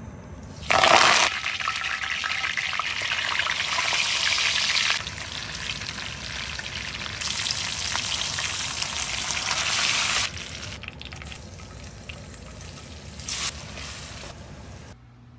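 Hot oil sizzling and spluttering in a cast-iron pan: a loud crackle as fresh curry leaves hit the oil about a second in, then the steady sizzle of a spice-marinated whole snapper frying, with abrupt jumps in level. Near the end the sizzle is that of sliced onion and grated coconut frying.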